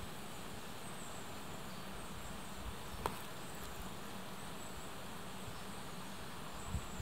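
Steady outdoor background hiss with short, faint, high insect chirps every second or two, and a single sharp click about three seconds in.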